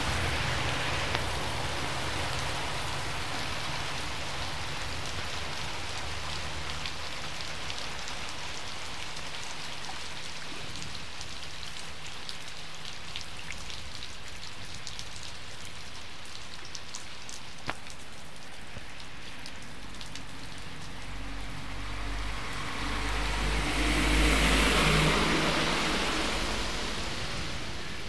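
Heavy rain falling steadily on the road and surroundings, a constant hiss of rain on wet ground. About three-quarters of the way through, a vehicle passes on the flooded road, its rumble and tyre hiss swelling and then fading.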